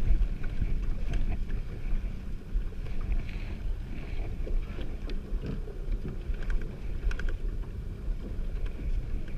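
Boat motor running slowly in gear, with wind rumbling on the microphone and a few light knocks on the boat.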